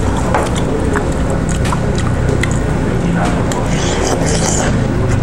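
Eating sounds from a bowl of jjamppong noodle soup: slurping of noodles and broth with small clicks, over a steady low hum of restaurant background noise.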